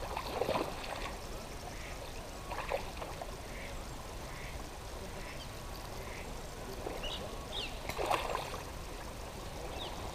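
A duck quacking three times, each call short: about half a second in, near three seconds, and near eight seconds. Small bird chirps come in between.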